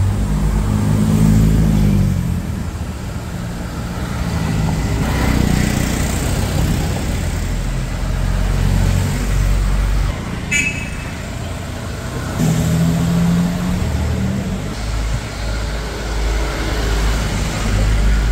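Car engines running as vintage and sports cars drive past one after another, with a steady low rumble. Engines swell loudest about a second in and again about twelve seconds in. There is a brief sharp sound about ten seconds in.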